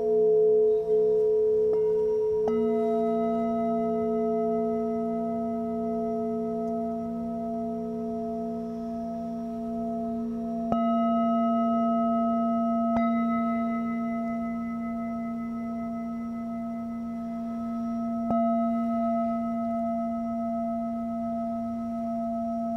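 Metal singing bowls struck in turn with a felt-covered mallet, each tone ringing on long and overlapping the others in a slowly beating chord. New strikes come about two seconds in, around eleven and thirteen seconds, and about eighteen seconds in.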